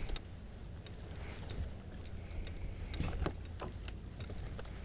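Small handling and water noises on a paddleboard: a low steady rumble with a few scattered short clicks and knocks, the clearest about halfway through and again near the end.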